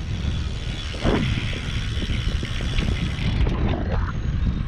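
Canyon Endurace CF-SLX carbon road bike rolling along pavement: steady tyre and road rumble with wind on the microphone and rapid mechanical ticking and rattling, and a single knock about a second in.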